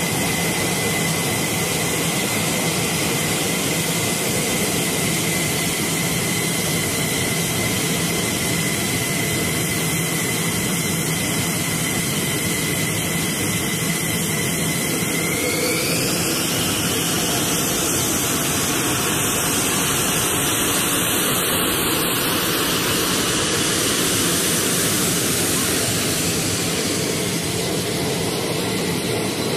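F-16 fighter jet engines running on the flight line: a loud, steady rush with a high whine that glides up in pitch about halfway through and rises again a few seconds later.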